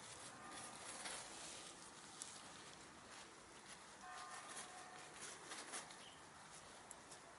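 Faint sounds of hens foraging: light rustling and pecking in leafy ground cover, with a short, soft hen cluck about four seconds in.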